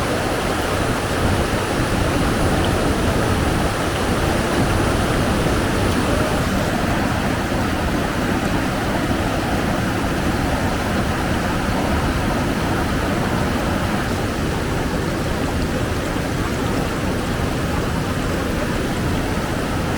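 Strong wind blowing steadily, a continuous rushing noise with a low rumble on the microphone.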